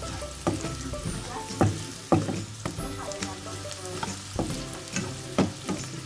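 Onion and garlic sizzling in a granite-coated nonstick wok while a plastic spatula stirs them, scraping and tapping the pan about twice a second.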